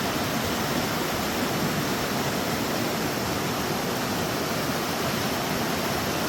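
River water rushing steadily over a waterfall.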